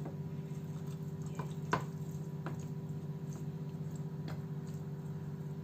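Hands rubbing crushed ginger into the skin of a raw whole chicken: faint wet squishes and a few soft clicks, one sharper click a little under two seconds in, over a steady low hum.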